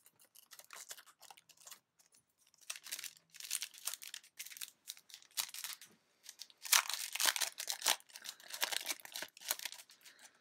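Foil wrapper of a Yu-Gi-Oh! Breakers of Shadow booster pack being torn open and crinkled in irregular crackling spurts, faint at first and loudest in the last third.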